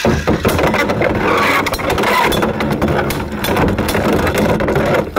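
Beyblade spinning tops battling in a plastic stadium: a second top lands in at the start, then loud continuous clattering and grinding as the tops collide and scrape around the arena and its toothed rail.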